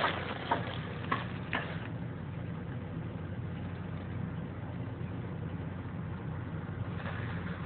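Honda CRX engine idling steadily, heard from inside the cab, with a few sharp clicks and knocks in the first two seconds.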